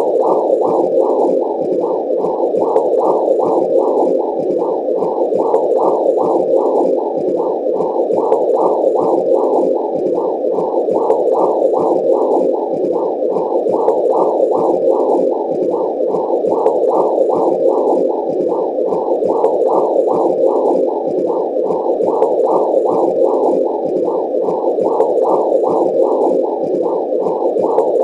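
Womb sound: a continuous muffled whooshing that swells in a steady pulse about twice a second.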